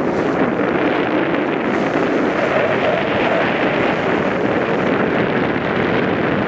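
Bow wave rushing and splashing along a sailing yacht's hull under way, a steady loud noise of water mixed with wind buffeting the microphone.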